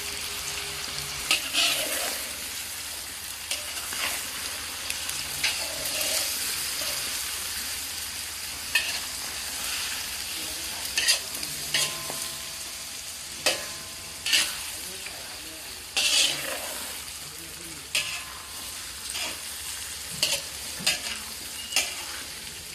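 Food frying in a hot pan, sizzling steadily, with irregular sharp knocks and scrapes of a utensil stirring it.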